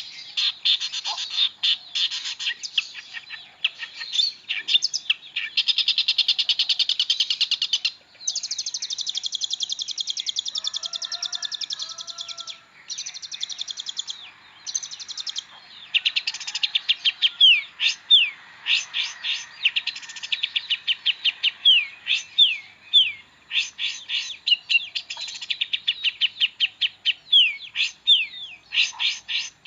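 Long-tailed shrike (pentet) singing a fast, varied song of high rapid trills and chattering runs, rich in notes mimicked from other birds. In the second half it breaks into a run of quick down-slurred notes.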